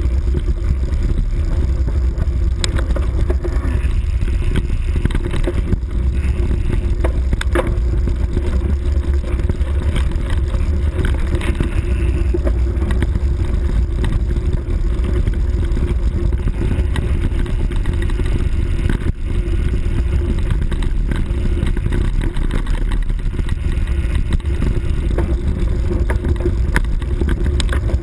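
Steady loud rumble of wind buffeting the microphone of a camera moving fast along a rough trail, with a few short knocks as it jolts over bumps.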